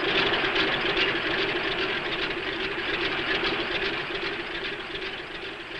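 Propeller plane's engine running steadily, a dense drone with a rapid, even throb, easing a little near the end.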